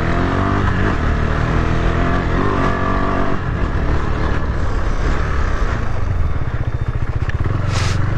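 Motorcycle engine running and revving, its pitch rising and falling in the first few seconds, then pulsing steadily. A short rush of noise comes near the end.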